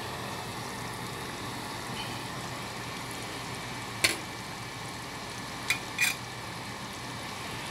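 Steady whoosh of a kitchen fan over a pot of pork chops simmering in sauce, broken by three sharp clinks of cookware, one about four seconds in and two close together about two seconds later.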